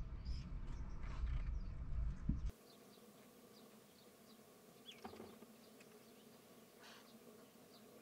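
Low rumbling noise for about two and a half seconds that cuts off abruptly. It gives way to faint outdoor ambience with scattered short, high chirps and a soft buzz.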